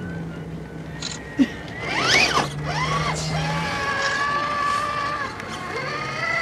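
Electric motor of a radio-controlled scale crawler truck whining under throttle. A sharp knock comes about a second and a half in, then the pitch rises and falls quickly before settling into a steady whine that wavers slightly.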